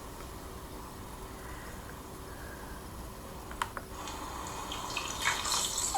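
Water in a bathtub with a kitten in it: a steady faint trickle with drips and small splashes, two sharp clicks about three and a half seconds in, and the splashing getting busier near the end.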